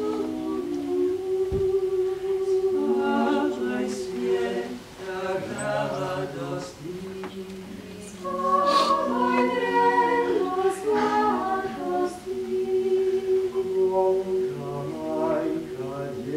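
Small mixed vocal ensemble of five voices, four women and one man, singing a cappella in harmony, holding long chords with a low male line beneath, in phrases with short breaths between.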